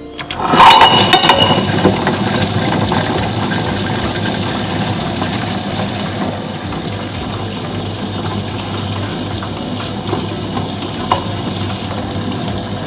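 Table-top stone wet grinder switched on about half a second in: its granite rollers start turning over soaked fenugreek seeds with a brief clatter, then run steadily, grinding the fenugreek first before the urad dal goes in.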